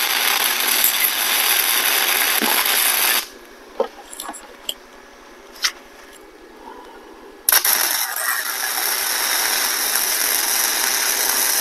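Flux-core wire-feed welder arc running with a steady hiss as beads are laid on steel. It stops about three seconds in, a few light clicks follow, and a second bead starts about seven and a half seconds in.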